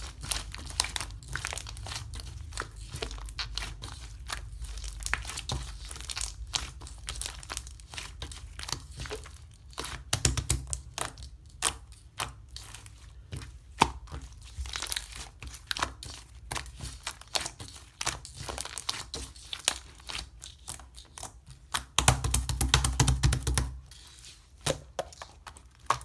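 Slime being handled, pressed and stretched by hand, with a dense, irregular crackling and popping of trapped air. Brief stretches of low rumbling handling noise come near the start and again near the end.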